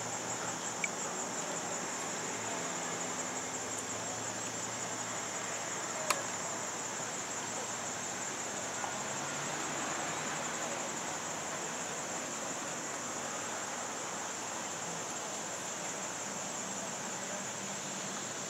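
Steady insect chorus: a high, finely pulsing trill that holds one pitch throughout, over a soft background hiss. A single sharp click about six seconds in.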